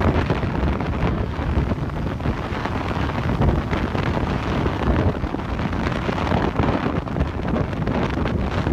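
Wind blowing across the microphone: an uneven rushing noise that starts abruptly and keeps up throughout.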